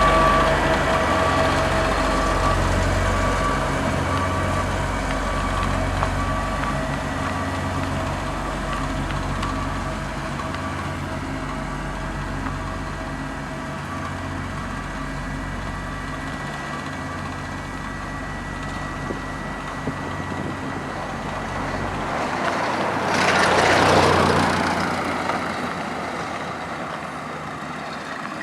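Asphalt road roller's diesel engine running with a low, pulsing hum, and a reversing alarm beeping over the first several seconds. About 23 seconds in, a louder rushing noise swells and fades as machinery passes close.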